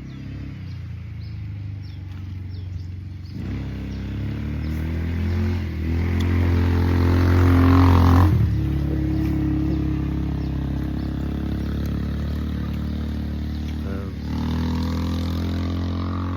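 An engine running and revving: it swells in pitch and loudness to a peak about eight seconds in, drops back sharply, then revs up again near the end.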